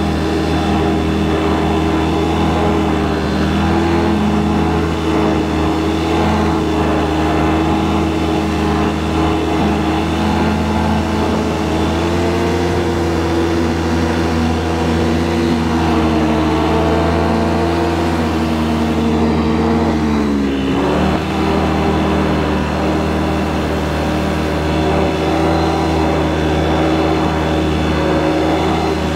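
Snowmobile engine running steadily while riding, its pitch dipping briefly and recovering about two-thirds of the way through.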